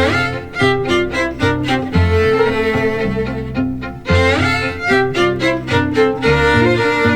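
Background music of bowed strings, violin over cello, in quick, busy notes with a steady bass line.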